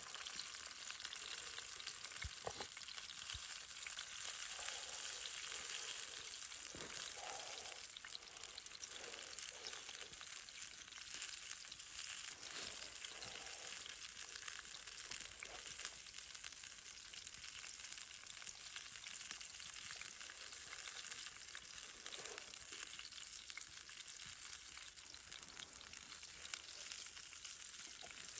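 Food frying in a pan: a steady sizzling hiss with scattered small crackles.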